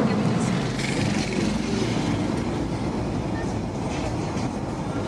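Steady rumble and road noise of a moving vehicle, heard from aboard it.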